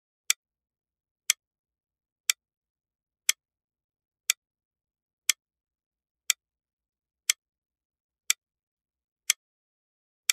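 Clock ticking with dry, sharp ticks at an even one per second and silence between them.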